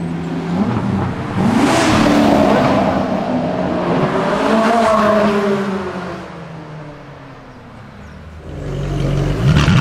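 V8 sports cars accelerating away one after another, their engine notes rising and falling through the gears. About two-thirds through it goes quieter, then another engine revs up near the end.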